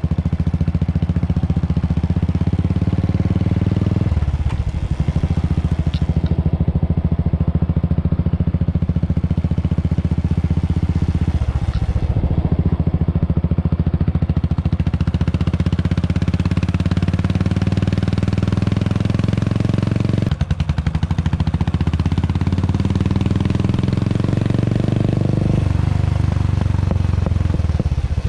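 Royal Enfield Classic 350's single-cylinder engine heard through a Vardenchi Retro C4 CL aftermarket silencer while the bike is ridden. The exhaust note climbs in pitch in several long pulls, each broken by a short dip as the throttle is eased for a gear change.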